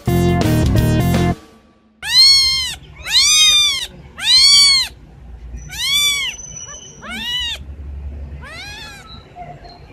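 Kitten meowing: six high-pitched meows that rise and fall in pitch, the first three loud and the later ones fainter. About the first second is piano music, followed by a short gap before the meows start.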